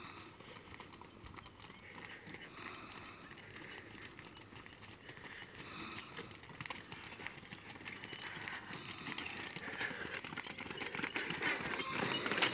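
Hooves of a pair of bullocks pulling a bullock cart, clip-clopping on an asphalt road and growing steadily louder as the cart draws close near the end.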